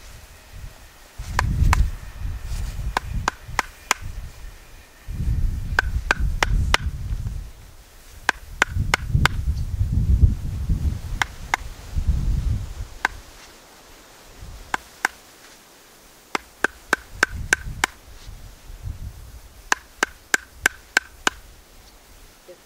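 Wooden mallet striking a chisel set into the end of an upright log, to start splitting it through the pith. Sharp knocks come in runs of a few per second, with pauses between the runs.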